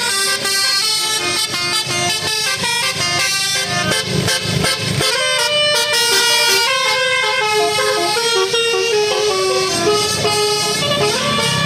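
Bus 'telolet' musical air horn playing a fast tune, several horn tones sounding together and jumping from note to note, over a low rumble.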